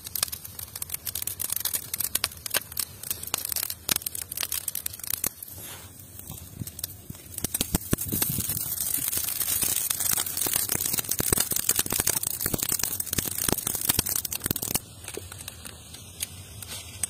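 Wood fire of dry sticks and twigs crackling and popping inside a clay tandoor. About eight seconds in, a louder steady rushing hiss joins the crackles and cuts off suddenly near fifteen seconds.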